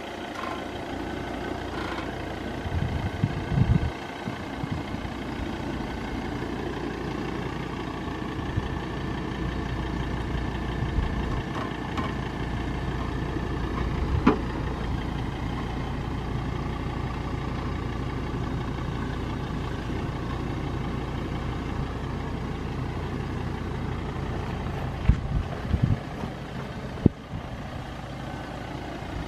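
Ford Endeavour's 3.2-litre five-cylinder diesel running steadily at low revs as the SUV crawls over a steep dirt off-road obstacle. A few short knocks can be heard now and then.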